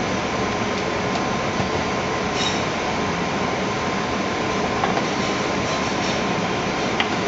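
Steady rushing noise of commercial kitchen ventilation, with a faint steady hum and a few light clicks from work at the counter.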